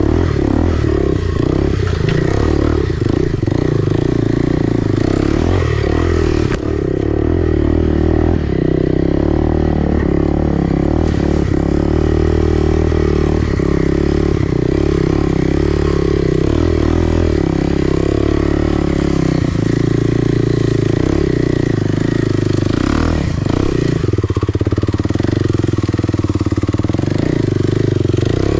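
Enduro motorcycle engine running while riding, its pitch rising and falling a little with the throttle, with a few short knocks.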